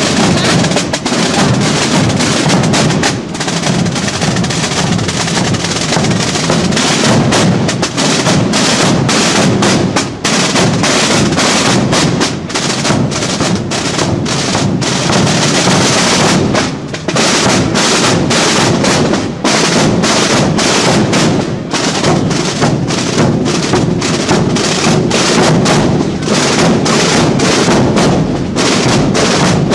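Marching drum corps playing together: many snare drums rolling and beating over large rope-tensioned bass drums, in steady, unbroken drumming.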